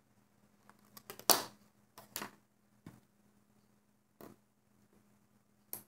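Irregular small clicks and taps of a hook working rubber bands on a plastic Alpha Loom, about half a dozen in all, the sharpest just over a second in.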